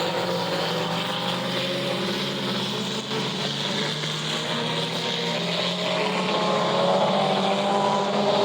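Race car engines running on the track, holding steady and getting somewhat louder near the end.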